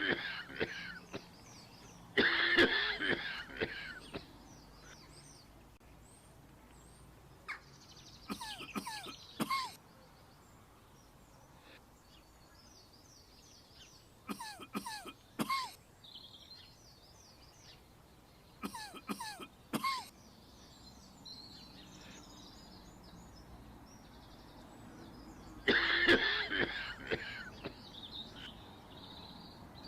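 A person coughing in short bouts, several times, over steady outdoor background noise with faint bird chirps.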